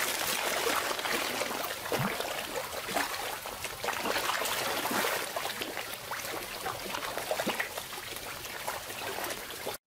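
Koi pond water trickling and splashing, with many small splashes at an even level.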